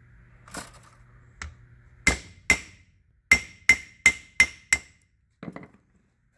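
Hammer striking a steel driver to tap a wrist pin end cap into a Detroit 6-71 piston: two blows, a short pause, then five quicker blows, each with a brief metallic ring. The end cap is being seated to seal the oil pressure for the wrist pin.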